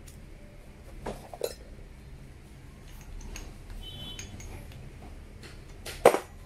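Small metal clinks and knocks as drill bits are handled and a new bit is fitted into the chuck of an electric impact drill. There are a few sharp clacks, the loudest about six seconds in.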